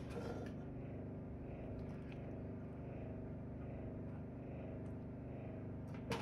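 Steady low machine hum, with a couple of faint clicks and a sharper click near the end.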